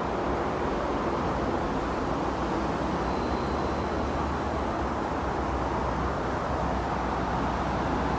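Steady ambient rumble and hiss of an open-air railway platform, with a low hum underneath and no train arriving.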